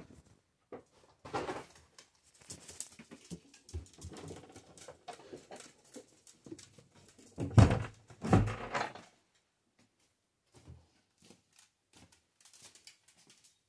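Dogs scuffling at play, with soft rustling and two loud thuds a little past halfway.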